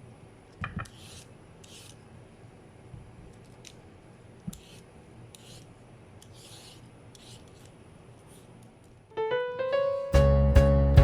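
Several soft, short scraping strokes and a couple of light knocks against a quiet background. Piano background music starts about nine seconds in and grows loud near the end.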